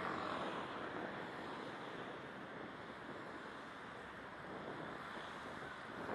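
Steady wind rushing over a sunglasses camera's microphone while cycling, a little louder near the start.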